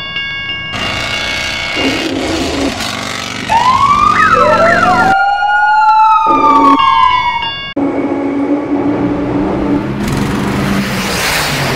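An emergency-vehicle siren wails, its pitch sweeping up and then sliding back down over about four seconds in the middle; this is the loudest sound. Steady horn-like tones come before it, and a rushing noise follows near the end.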